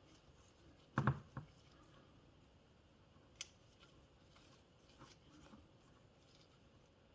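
Small metal and plastic parts being handled and fitted during motor reassembly: a double knock about a second in, a sharp click a couple of seconds later, then a few faint taps.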